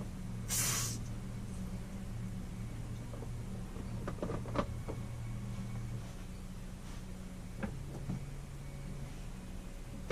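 A short hiss of water spraying about half a second in as the water supply line is disconnected from the RV toilet, followed by a few small clicks and knocks of the fitting being handled. A low steady hum runs underneath.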